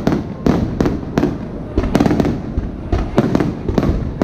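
Aerial firework shells bursting in quick succession: a string of loud bangs, two or three a second, each trailing off in an echo.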